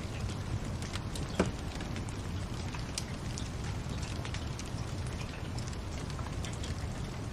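Wood fire crackling in a fireplace: a steady low rumble with scattered small crackles and one louder pop about a second and a half in.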